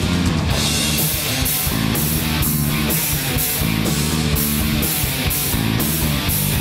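Heavy metal band playing an instrumental passage: distorted electric guitars over bass and drums, with cymbals struck on a steady beat.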